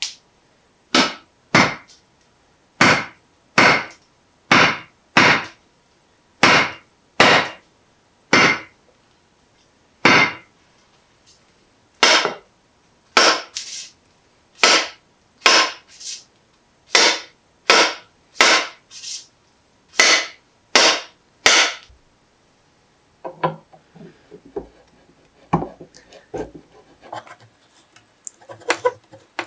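Repeated sharp wooden knocks, about one a second for some twenty seconds, as blows drive the bush axe's steel head onto its wooden handle. Near the end they give way to light clicks and handling noise.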